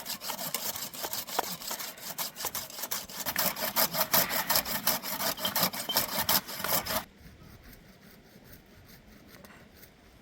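Hand saw cutting wood in quick, rhythmic rasping strokes that stop abruptly about seven seconds in.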